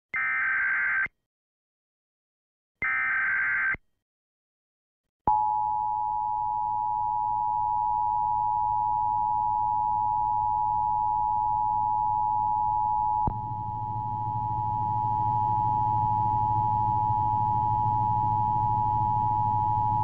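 Emergency Alert System nationwide test tones. Two one-second bursts of warbling digital header data come about two seconds apart. After a short silence, the steady two-tone attention signal (853 and 960 Hz) starts about five seconds in and holds to the end, with a low hum and static coming up under it partway through.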